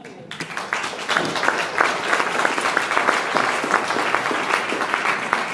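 Audience applauding. Many hands clap, starting about a third of a second in and swelling over the first second or two, then holding steady.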